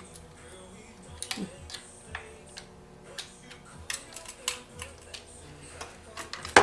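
Irregular small clicks and taps of screws, hand tools and metal chainsaw parts being handled during bushing work, with a louder knock right at the end.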